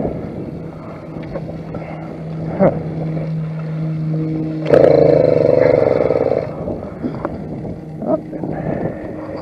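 YD100 two-stroke motorized-bicycle engine running, with a louder rough burst of revving from about five to six and a half seconds in. The engine is failing: a broken piston-pin clip had come loose inside it and wrecked the cylinder.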